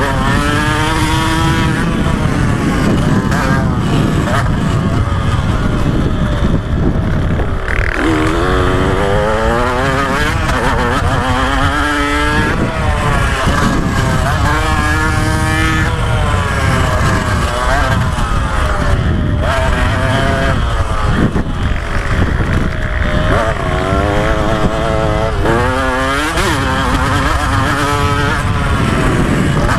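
KTM 125 SX single-cylinder two-stroke engine revving hard under load. Its pitch climbs, cuts back and climbs again, over and over, as the rider works through the gears and throttle.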